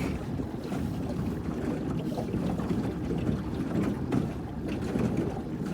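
Steady low rumble of a small boat on a lake: a Suzuki DF25A four-stroke outboard running, mixed with water noise and wind buffeting the microphone, with no distinct engine note standing out.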